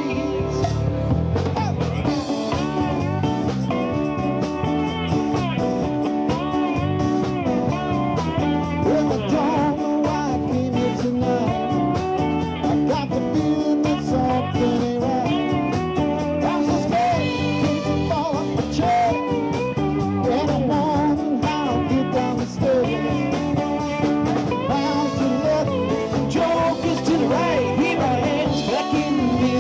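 Live rock band playing: drum kit, electric and acoustic guitars, with singing over the top.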